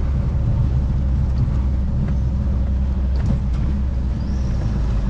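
Volkswagen Kombi camper van driving, its engine and road noise a steady low rumble.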